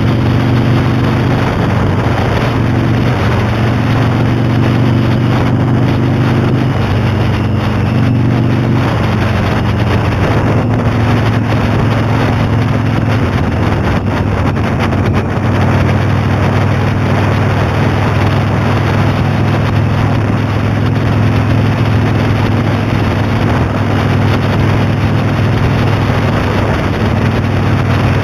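Motorcycle engine running while under way, with wind noise on the microphone. The engine note steps up and down several times in the first nine seconds or so, then holds steady.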